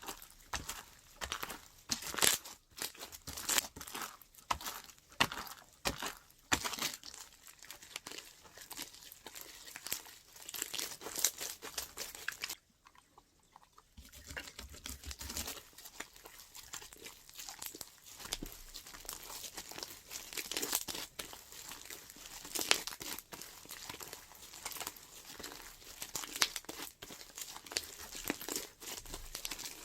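Slime being squeezed, stretched and pressed by hand, making dense, irregular crackling and popping, with a brief pause about 13 seconds in.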